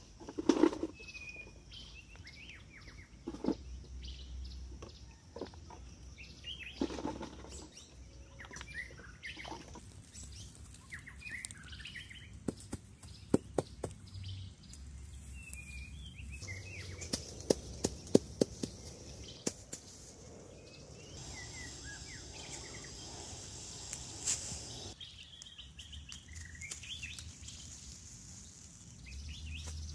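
Birds chirping and calling throughout, with occasional sharp clicks and knocks. The loudest knocks, about a second in, come from stones being set in place by hand.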